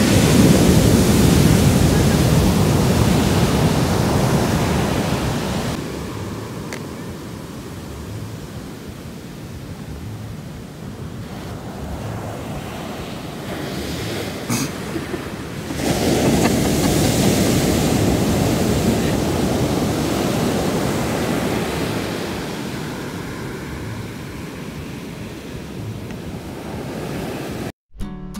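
Ocean surf breaking on a sandy beach: waves crash and wash up the shore as a steady rush. It is loudest at the start and swells again about sixteen seconds in.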